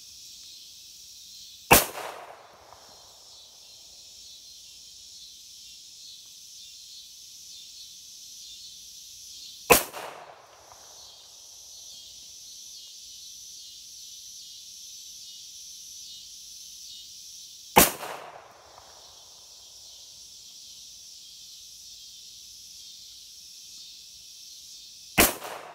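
Four single shots from a Glock pistol, slow and deliberate, about eight seconds apart, each followed by a short echo fading away. Insects chirp steadily in the background.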